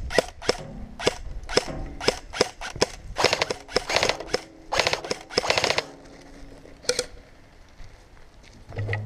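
Airsoft guns firing in an exchange: separate sharp shots for the first few seconds, then several rapid full-auto bursts, and a last single shot before it goes quieter.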